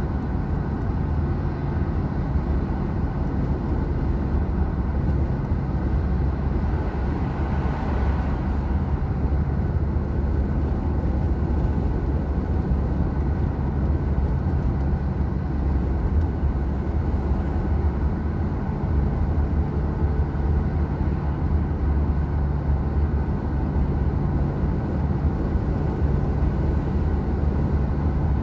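Steady road and engine noise inside a moving car's cabin: a continuous low rumble of tyres on asphalt. A brief swell of hiss comes about a third of the way in.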